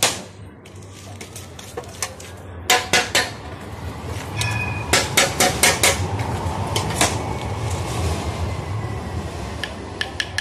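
A knife striking a sealed clay testi kebab pot to crack it open over a steel tray: sharp knocks, one at first, then quick clusters of several about three and five seconds in and a last one about seven seconds in. A steady rushing noise runs under the knocks in the middle, while flames burn in the tray.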